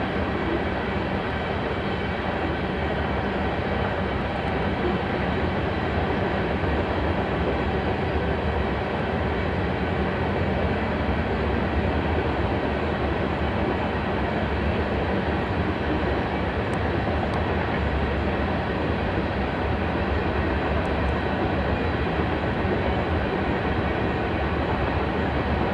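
Union Pacific coal train's cars rolling past: a steady, unbroken noise of steel wheels on rail.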